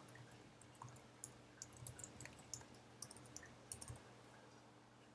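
Faint, irregular clicks of typing on a computer keyboard, over a faint steady hum.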